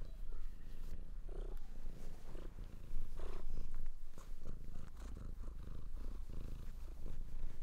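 A cat purring close to the microphone, a fast, even low throb, with a louder sound lasting about a second around three seconds in.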